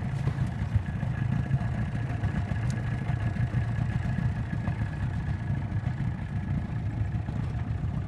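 Boat motor running steadily at an even, low speed.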